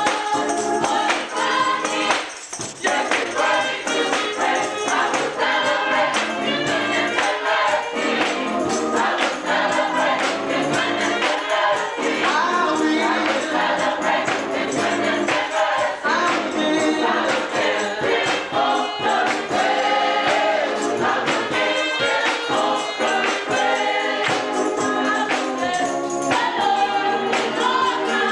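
Gospel choir singing full-voiced, with hand clapping keeping the beat.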